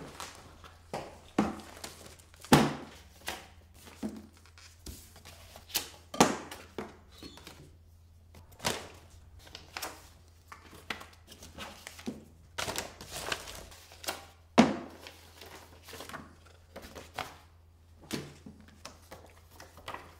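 Paper handling at a table: envelopes and paper rustling and crinkling, with irregular knocks, two of them much sharper than the rest, about two and a half seconds in and near the fifteenth second.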